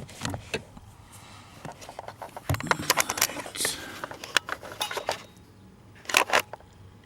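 Handling noise: a run of sharp clicks, taps and scrapes from hands moving objects about, busiest in the middle, with a short louder rustle near the end.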